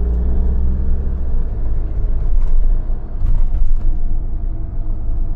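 Camper van engine and road noise heard from inside the cab while driving, a steady low drone with a few faint clicks and rattles.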